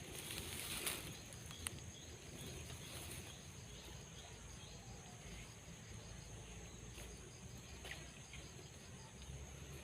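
Faint outdoor ambience: a steady high-pitched insect drone, like crickets, with a few light ticks and rustles of handling.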